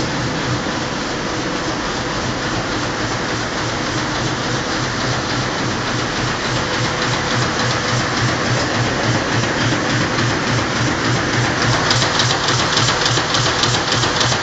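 Conveyor machinery running steadily: a dense mechanical clatter over a low throb. A quick, regular clicking comes in about twelve seconds in and grows louder.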